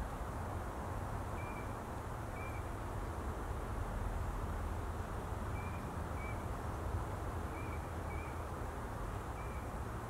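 Shallow stream flowing with a steady rush of water. A bird gives short, faint chirps several times, some in quick pairs.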